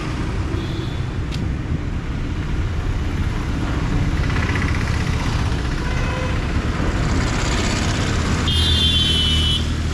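Steady city road traffic with engines rumbling past, and a brief high-pitched tone about a second long near the end.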